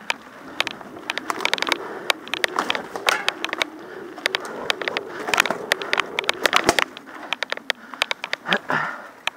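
Mountain bike jolting along a rough dirt trail: a dense, irregular rattle of sharp clicks and clunks from the bike and camera mount over bumps, with a wavering buzz underneath.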